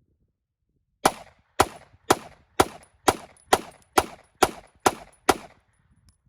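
Ten gunshots from a semi-automatic firearm fired in steady succession, about two a second, each with a short ringing tail.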